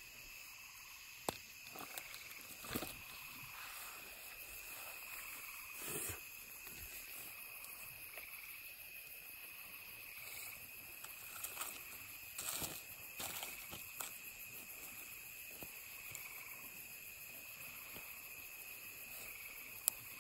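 A steady, faint, high insect chorus at night, with scattered short clicks and knocks over it.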